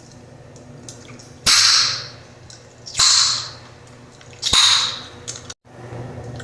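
Bubblegum snapped loudly in the mouth three times, about a second and a half apart, each a sharp crack trailing off in a short hiss.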